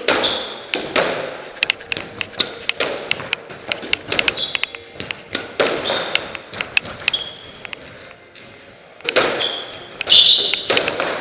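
Squash rally: the rubber ball smacked by rackets and thudding off the court walls again and again, with shoes squeaking briefly on the wooden floor in between.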